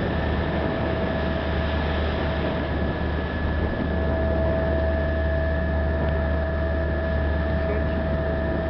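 Ferry's engine running steadily under way, a low drone with a steady whine on top, under an even hiss of wind and water on the open deck.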